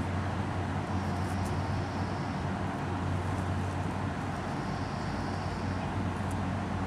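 Steady low background rumble with a hum, and a faint high buzz that comes and goes every few seconds.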